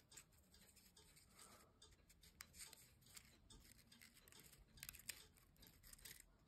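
Faint crinkling and light clicks of folded paper Sonobe origami units being pushed together by hand, with a few slightly louder crackles about five seconds in.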